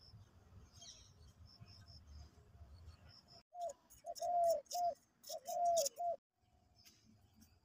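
A dove cooing: a phrase of five notes, short and long in turn, about halfway through. Faint high chirps of small birds come before it.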